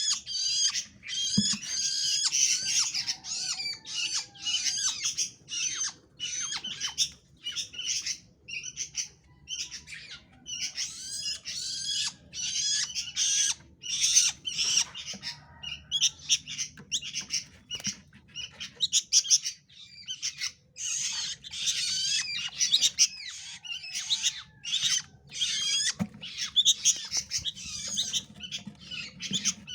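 A songbird singing and chattering in rapid, varied high-pitched phrases with only brief pauses.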